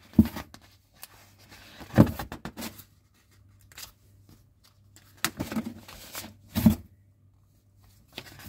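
Pages of a large paper instruction booklet being turned and pressed flat on a table: a few short paper flaps and rustles, spaced one to two seconds apart.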